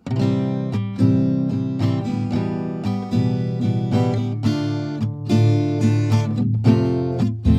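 Background music: acoustic guitar strummed in a steady rhythm, starting suddenly after silence.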